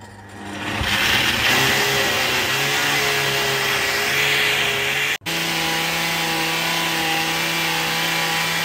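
Countertop blender motor starting up and running at full speed, puréeing a jug of cooked tomato sauce. It builds up over the first second, breaks off for an instant about five seconds in, then runs on with a steady hum.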